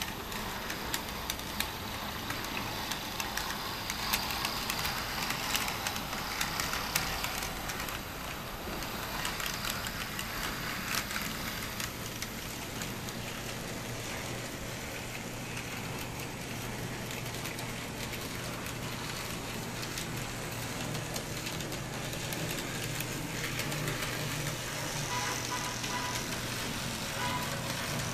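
N-scale model trams running on a small layout: rattling wheel noise with many small clicks in the first half, then a steady motor hum from about halfway.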